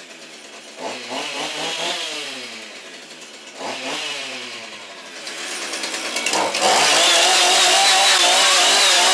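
Chainsaw engine revved up and let fall back twice, then from about six and a half seconds in held at full throttle with a loud, steady, wavering whine.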